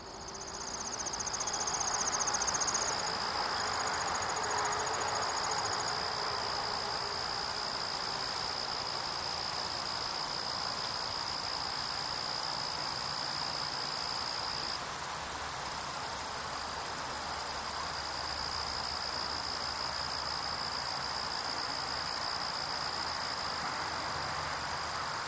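Field insects such as crickets, several trilling steadily at different high pitches. The lower trill breaks off briefly a little past halfway and then resumes. Under them is a soft, steady hiss.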